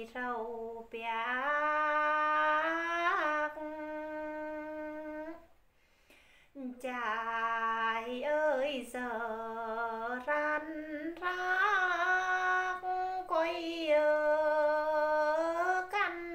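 A woman singing phong slư, the Tày folk verse-song, solo and unaccompanied: long held notes with wavering ornaments, broken by a pause for breath about six seconds in.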